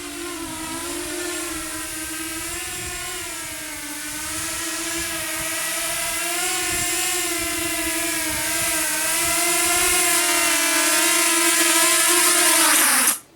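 Walkera F210 racing quadcopter's motors and propellers whining in flight, the pitch wavering slightly as the throttle shifts. The sound grows louder over the last several seconds, then cuts off suddenly near the end.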